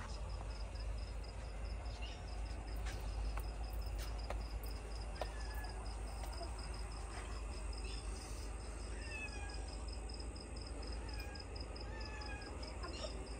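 A cricket chirping in a steady, even rhythm over a low rumble, with a few faint clicks and knocks.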